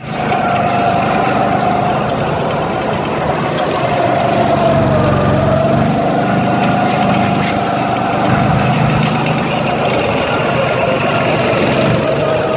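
Small petrol go-kart engine running under way, a steady buzzing note whose pitch dips briefly about five seconds in and then picks up again.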